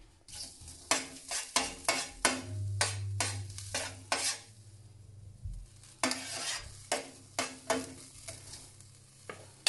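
A utensil scraping and stirring chopped garlic around a preheated, oil-free stainless-steel Saladmaster skillet: a quick run of short scrapes, a pause of about a second and a half in the middle, then more scrapes.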